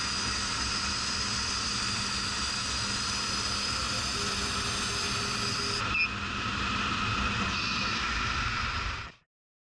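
Epilog CNC laser cutter cutting acrylic sheet: a steady machine hiss with a high whine running through it. The sound shifts slightly about six seconds in with a short click, then cuts out near the end.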